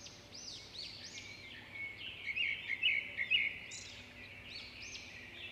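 Birds chirping: a series of short, high, arching chirps, with a louder run of quick twittering notes about two to three seconds in.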